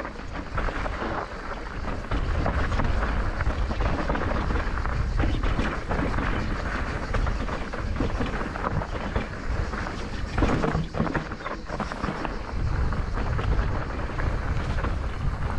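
Mountain bike riding a loose, rutted technical trail: tyres crunching on loose dirt and gravel and the bike rattling over the bumps, with a steady low wind rumble on the camera microphone.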